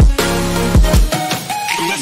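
Background music with a beat of deep kick drums under held synth-like notes.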